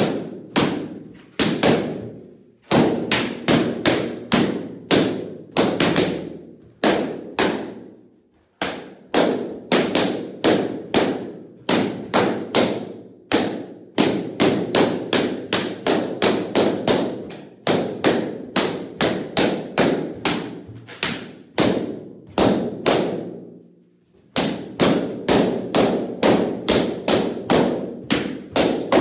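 Latex party balloons being burst one after another by hand, about two to three sharp pops a second, each followed by a short echo. There are a few brief pauses between runs of pops.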